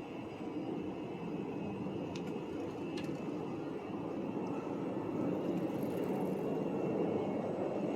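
Steady low rumble of engine noise from the city, swelling slightly about five seconds in, with two faint ticks a couple of seconds in.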